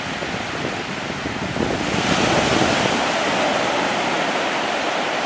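Small waves breaking and washing up on a sandy shore, a steady surf noise that swells about two seconds in.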